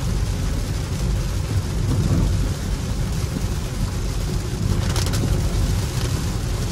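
Steady cabin road noise from a Hyundai Ioniq 5 electric car driving on a wet road: a low rumble from the tyres with an even hiss of water and rain, and no engine note. A brief, sharper hiss comes about five seconds in.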